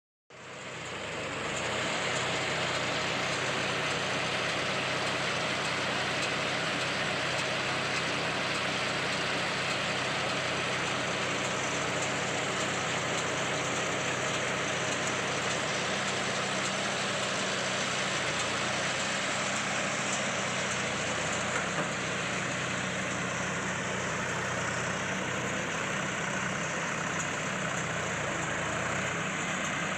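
Tractor engine running at a steady speed, driving a round baler, with a constant mechanical noise over the engine's hum. The sound fades in over the first two seconds.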